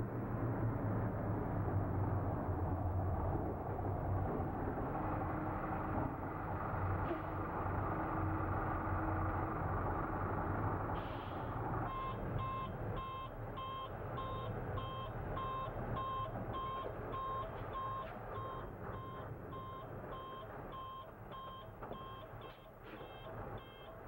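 Loaded dump truck's diesel engine running with a low rumble that fades as it moves off. About halfway through, its reversing beeper starts: a steady beep repeating about one and a half times a second as the truck backs up.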